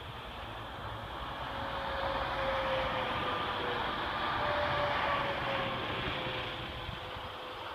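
A vehicle passing with a steady rushing road noise that swells about two seconds in and eases off near the end, with a faint whine that slides slightly lower as it goes by.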